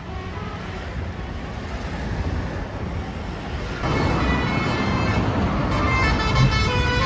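A bus driving past in roadside traffic, its engine and road noise swelling suddenly about four seconds in. Near the end a multi-tone telolet horn starts sounding over it.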